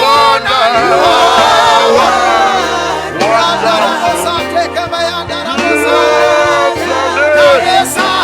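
Gospel worship music: voices singing with sliding, wavering pitches over a sustained bass and keyboard backing whose low notes change every second or two.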